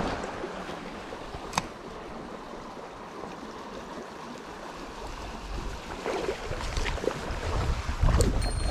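Mountain stream flowing steadily, with a single sharp click about a second and a half in and some low bumping and faint clicks near the end.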